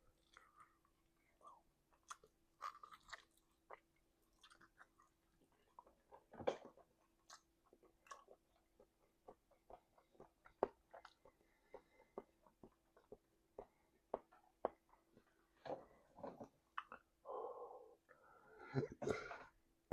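A person chewing and biting food close to the microphone: scattered quiet wet clicks and smacks, with sharper bites about six and a half and ten and a half seconds in and a busier stretch of chewing near the end. A faint steady hum sits underneath.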